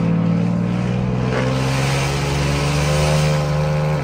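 Ford F-150's 3.7-litre dual-overhead-cam V6 with cat-back straight pipes and no mufflers, pulling hard under acceleration. The exhaust note climbs slowly in pitch through one gear. It is heard from inside the cab.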